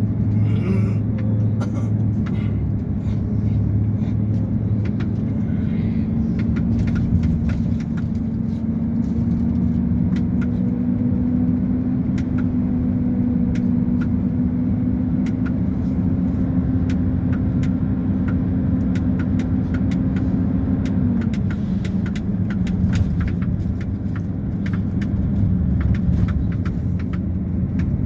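Diesel engine of a heavy vehicle running steadily. Its pitch rises slowly, then drops back about 21 seconds in. Scattered clicks and rattles run throughout.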